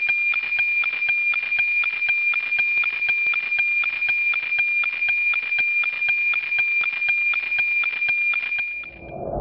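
Electronic soundtrack: a steady, high-pitched beep-like tone held over a fast, even pulse of clicks. It stops shortly before the end, giving way to a lower drone.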